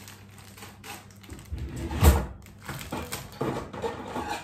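A few knocks and clatters of things being handled and set down in a kitchen, with one heavier thump about two seconds in.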